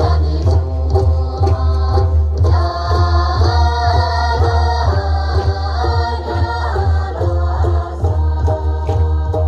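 Tibetan gorshey circle-dance song played loud: voices singing a melody over a heavy, steady bass beat.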